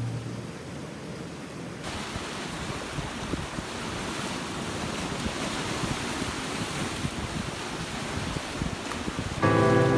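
Sea surf washing and breaking against shore rocks, a steady rushing hiss that grows louder about two seconds in. Guitar music fades out at the start and comes back in near the end.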